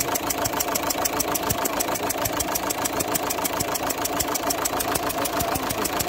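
Opel Zafira 1.9 CDTI four-cylinder diesel idling with a rapid, even ticking at the number-2 injector: compression escaping past the injector's failed copper sealing washer.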